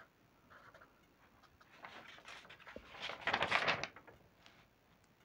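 Marker pen writing on paper: faint scratchy strokes, then a louder scratchy stretch about two to four seconds in as the figures are finished and underlined.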